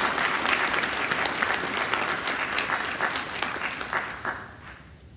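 Audience applauding, the clapping thinning out and dying away about four and a half seconds in.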